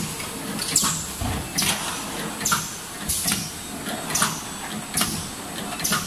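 Automatic bowl seaming machine (can seamer) running in its sealing cycle. A short hiss comes about every second, seven times in all, over steady machine noise.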